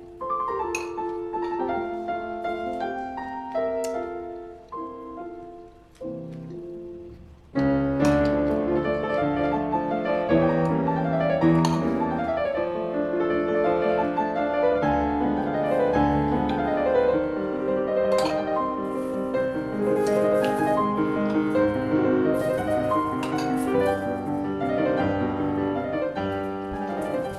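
Piano music: a lighter passage of single notes for about seven seconds, then fuller and louder with low bass notes joining in.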